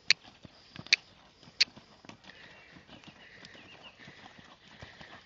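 Three sharp tongue clicks, each about three-quarters of a second apart, urging a lunged horse on, over the soft, muffled hoofbeats of the horse cantering on sand.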